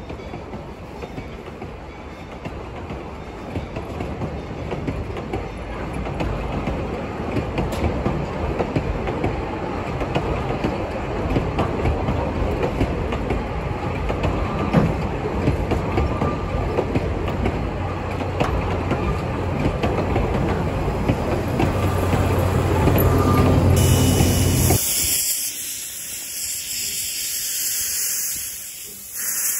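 Narrow-gauge passenger coaches rolling past on the rails, a steady rumble and wheel clatter that grows louder. About 24 seconds in it gives way to the steady hiss of steam venting from a steam locomotive's cylinders.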